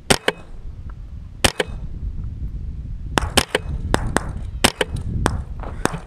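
.22 rimfire rifles firing a rapid, uneven string of shots, more than a dozen sharp cracks, some close and loud and some fainter, often two in quick succession, at a running rabbit.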